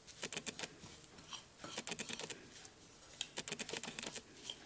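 Metal spoon stirring a spice paste in a ceramic bowl, clicking and scraping against the bowl in quick, irregular runs of light clicks.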